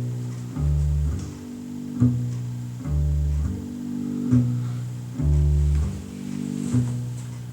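Recorded music played through vintage JBL C38 loudspeakers with D130 drivers: the instrumental intro, a plucked bass riff with guitar, the low phrase repeating about every two seconds.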